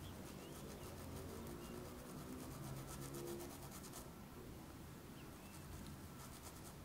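Flat paintbrush rubbing and dabbing water-soluble paint onto fabric: a faint scratchy brushing of quick short strokes, pausing about four seconds in and starting again briefly near the end.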